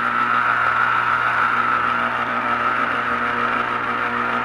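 Electric citrus juicer running with a steady motor whir, its reamer spinning under a lemon half pressed down onto it.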